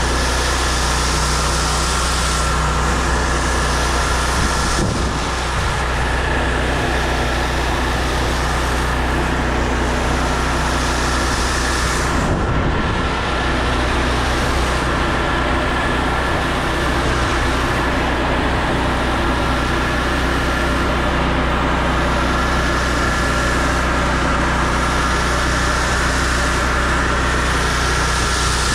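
Engine-driven pressure washer running steadily, with the hiss of its water spray over the engine drone.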